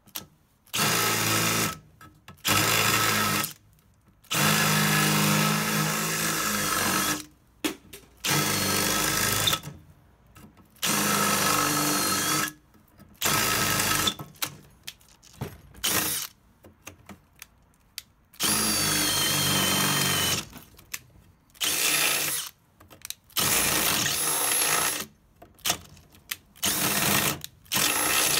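Electric drill boring through the Xiaomi M365 scooter's aluminium deck with a larger bit, enlarging a hole for a wiring grommet. It runs in about a dozen short bursts of one to three seconds with brief pauses, at times with a thin high whine as the bit cuts.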